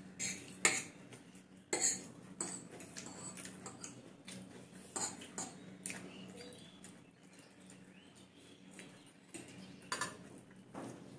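Metal forks clinking and scraping against ceramic plates as noodles are eaten, in scattered sharp clicks, several in the first two seconds, one about five seconds in and another about ten seconds in.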